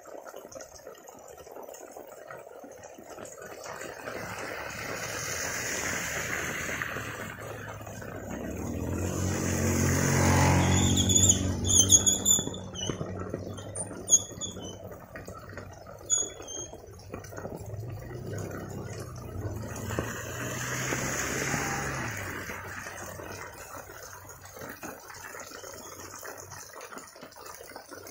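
Steady heavy rain hissing on a wet village road. Motorbikes pass close by, one about ten seconds in and another around twenty seconds. A few short high chirps come in between.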